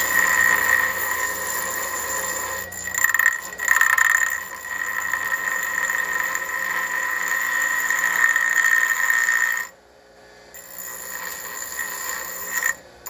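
A small metal part pressed against a spinning pedestal grinder, giving a steady high-pitched ringing squeal of metal on the wheel. It lets up briefly about three seconds in, stops near ten seconds, then starts again more quietly and builds.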